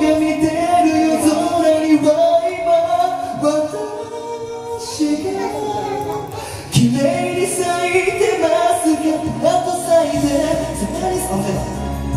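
A man singing into a karaoke microphone over a loud karaoke backing track.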